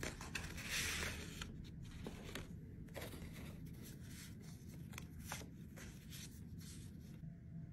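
Faint rustling and crinkling of paper packaging with scattered light clicks and taps, as hands unwrap and handle a boxed item. The rustling stops near the end.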